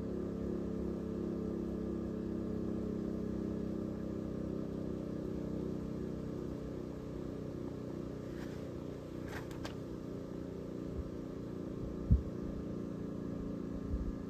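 Federal Signal STH-10 dual-tone outdoor warning siren slowly winding down after its blast: a low, steady drone of several tones with a wavering beat. A sharp thump near the end.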